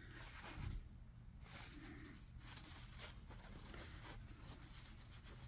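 Faint, irregular rustling and rubbing of a paper towel as a generator's metal-mesh spark arrestor screen is wiped dry after cleaning.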